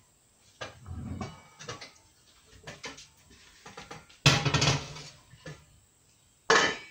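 Large stainless steel stockpot and its lid being brought out and set on the stove: a run of metal clanks and knocks, the loudest a little past four seconds in and another near the end.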